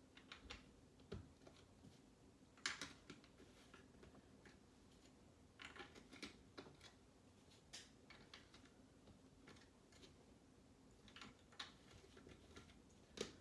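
Faint, scattered clicks and taps of plastic Lego pieces being handled and pressed together, the sharpest snap a little under three seconds in and another near the end.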